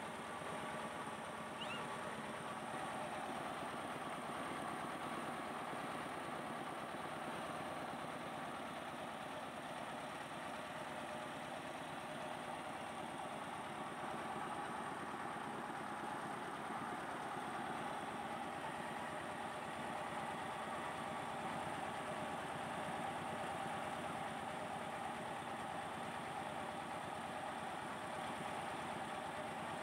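Engine-driven mobile rice mill running steadily, its belt-driven huller milling unhusked rice into rice.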